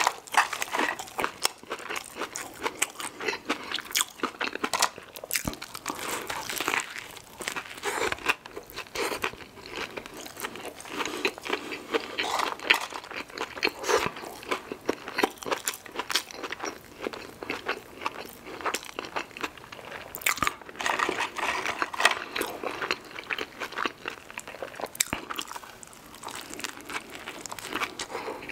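A person eating a saucy cheeseburger close to the microphone: bites, wet chewing and lip smacks in an irregular stream of clicks, with finger-licking partway through.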